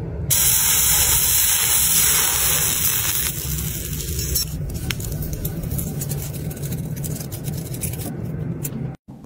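Freshly poured molten metal setting in a sand mould, a loud hiss for about three seconds that then fades. Later come faint scrapes and ticks as a thin metal strip is worked against the cast pieces in the sand.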